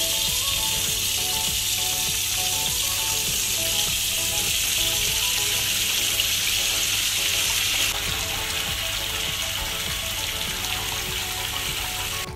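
Cooking water from boiled rice pouring out through a pot's perforated strainer lid into a stainless steel sink: a steady splashing hiss that eases a little about eight seconds in.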